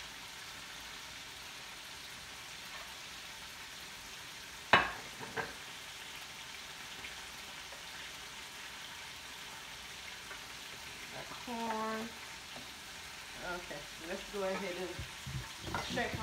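Shrimp frying in a pan: a steady sizzling hiss, with a sharp clack about five seconds in and a second, softer one just after.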